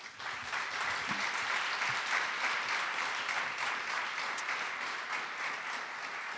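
Audience applauding, breaking out all at once, building over the first couple of seconds and then slowly dying away.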